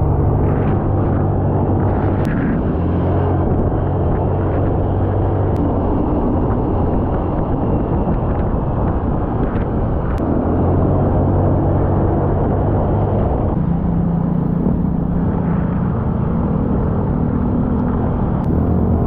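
Motorcycle engine running under way, its note shifting up and down with the throttle and rising about thirteen seconds in, with a constant wind rush over the onboard camera.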